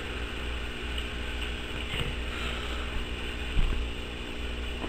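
Steady low hum and hiss of room noise picked up by a home camcorder, with a few faint clicks and knocks; the loudest knock comes about three and a half seconds in.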